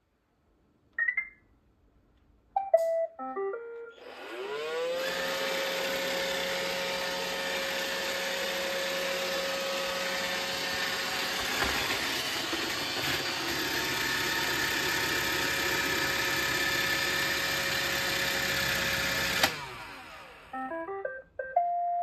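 iRobot Roomba robot vacuum: a single beep and a short falling tune of beeps, then its cleaning motors spin up with a rising whine and run steadily for about fifteen seconds before cutting off sharply. Another short falling tune follows near the end as it settles onto its charging dock.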